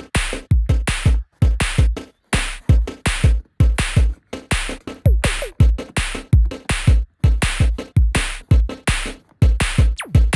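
Electronic background music with a fast drum-machine beat: deep kick-drum hits and crisp high ticks in a steady rhythm.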